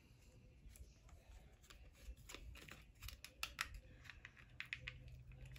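Faint clicks and scratches of fingers handling and opening a small paperboard lip-gloss box, growing more frequent after about a second.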